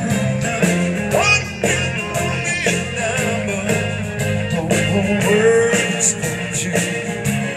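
Live rock band playing amplified through a PA, with electric guitar to the fore over a steady drum beat.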